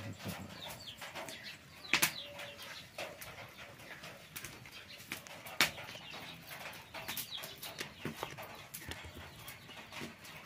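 Hands slapping and pressing thick, wet pitha batter flat onto dry leaves: irregular sharp pats with the crackle of the leaves underneath, two louder slaps about 2 and 5½ seconds in.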